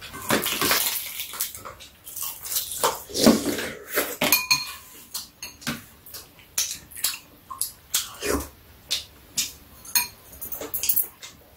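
A shared meal being eaten: chopsticks and spoons clicking and scraping against bowls and plastic food containers many times over, with chewing and slurping.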